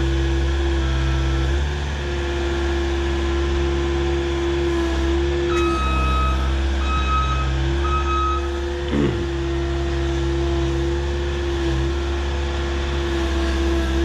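Skid loader engine running steadily as the machine creeps down a steep muddy slope. About halfway through, its back-up alarm beeps three times, and a brief falling whine follows soon after.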